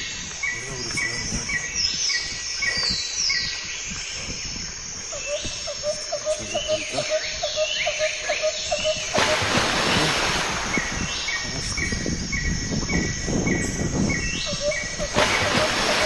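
Several birds calling outdoors: rows of short repeated chirps and quick falling whistled notes, over a steady thin high hiss. A rushing, wind-like noise swells about nine seconds in and again near the end.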